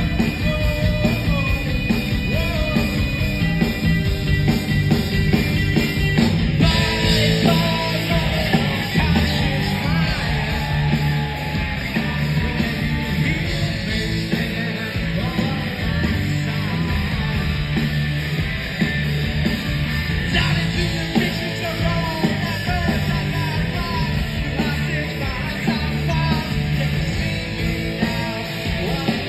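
Live rock band playing, with drum kit, electric guitars and keyboards. About six seconds in the band gets fuller and brighter.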